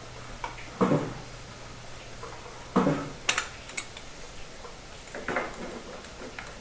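Black iron pipe fittings clanking and clinking as they are handled and threaded together: heavy knocks about a second in and near three seconds, sharp metallic clicks just after, and a softer knock past five seconds.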